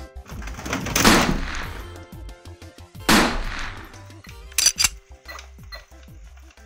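Two loud gunshot-like bangs, each with a long fading tail, about two seconds apart, followed by a quick cluster of sharp clicks, over steady background music.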